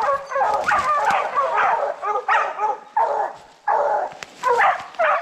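A pack of bear hounds baying, several voices overlapping in quick repeated calls, about two to three a second. The hunter supposes they have the bear treed.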